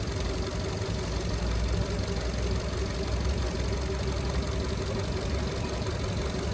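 Maruti Suzuki Dzire's four-cylinder petrol engine idling steadily on three cylinders. Cylinder 2 is misfiring (fault P0302), so the engine shakes and vibrates heavily; the uploader blames a faulty ECM.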